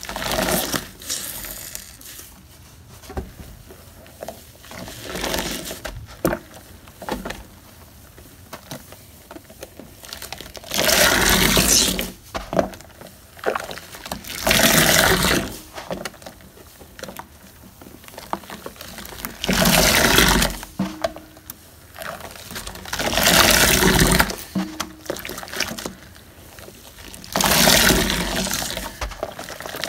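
Sponge being rinsed in a sudsy stainless-steel sink: about seven bursts of water splashing and pouring, each a second or so long, with quieter wet crackling of suds between.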